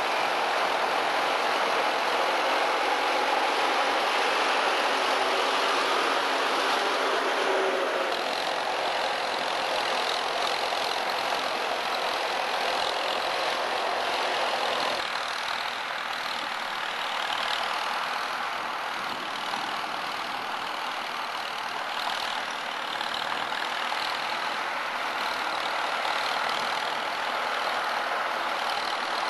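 Vintage Massey-Harris farm tractor engine running steadily while pulling a seed drill through tilled soil. The engine sound changes abruptly twice, about a quarter and half of the way through.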